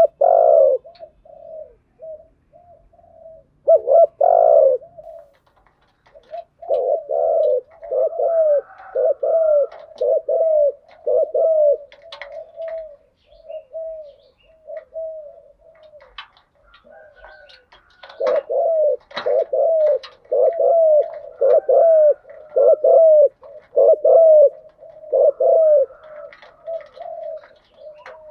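Spotted doves cooing: runs of quick, repeated low coos, two dense bouts with softer, sparser coos between them.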